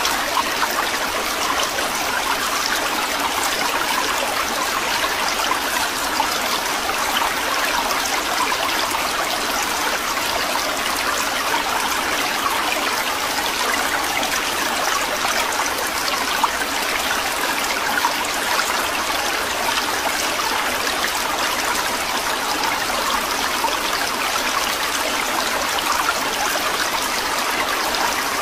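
Aquarium sponge filters bubbling: air bubbling up through the water with a steady, unbroken watery trickle.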